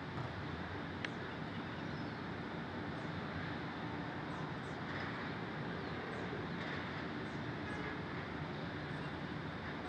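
Steady city ambience heard from high up: a constant low rumble of distant traffic, with faint high chirps scattered through and one sharp click about a second in.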